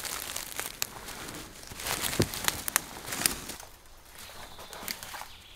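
Footsteps crunching through leaf litter and twigs, with sharp twig snaps and crackles. They are busiest in the first three seconds or so and sparser after.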